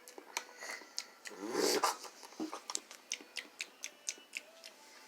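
A baby's short wordless vocal sound, a low grunting voice, about a second and a half in, amid a run of sharp little clicks and smacks.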